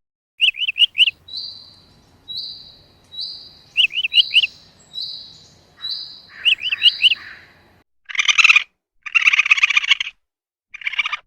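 Bird song: a thin, high whistled note repeated about seven times, mixed with quick clusters of rapid chirps. About eight seconds in it gives way to three harsher buzzing calls from a different animal.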